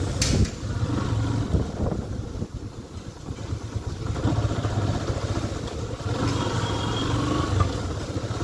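Motorcycle engine running while riding slowly over a wet, potholed road. A sharp knock comes just after the start, and the engine eases off and runs quieter between about two and four seconds in before picking up again.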